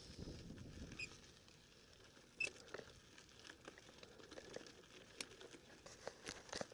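Mountain bike rolling over a loose dirt-and-gravel trail: faint crunch of the tyres on grit, with scattered irregular ticks and clicks from stones and the bike's parts, one sharper click about two and a half seconds in.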